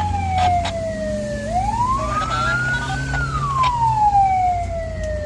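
Emergency siren in a slow wail: it falls, rises again over about a second and a half, then falls once more. The low, steady hum of the vehicle's running engine sits beneath it.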